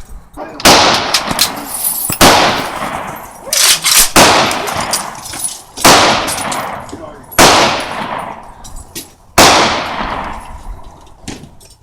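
Gunshots fired one at a time, about seven at uneven gaps of one to two seconds, each sharp crack followed by a long echoing tail.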